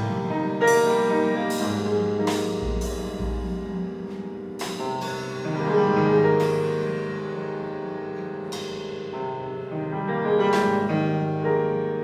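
A piano, electric guitar and drum trio playing: long held piano and guitar notes, with a cymbal struck every second or two and left to ring.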